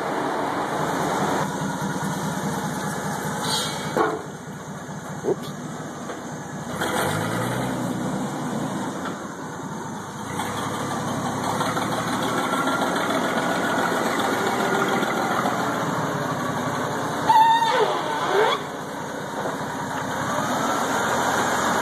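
Clark forklift engine running under load while carrying a heavy power hammer. The engine revs up about a third of the way in, with a few sharp knocks early on and a brief loud squeal about three-quarters of the way through.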